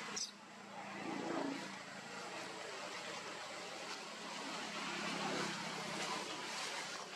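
Steady hiss with a faint low, even hum underneath, and a brief high rising chirp just after the start.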